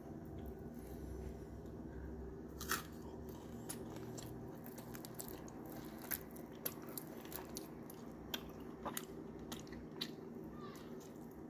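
Close-up chewing and crunching of crisp pan-fried galunggong (round scad), with one sharp crunch a few seconds in and then a run of crunches about every half second. A steady low hum runs underneath.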